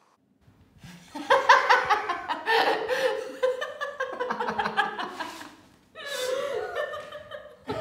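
A woman laughing hard, a long run of quick laughs starting about a second in, with a short break and a second burst of laughter near the end.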